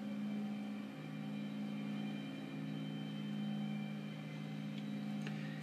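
Soft, steady low drone of a few held tones, like a background ambient pad, whose pitches shift about a second in.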